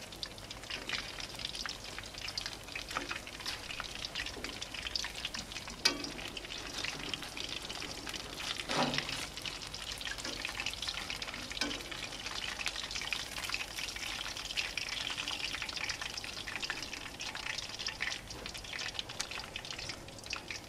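Tempura-battered mangrove snapper fillets sizzling and crackling steadily in hot oil in a frying pan, with a couple of light knocks, about six and nine seconds in.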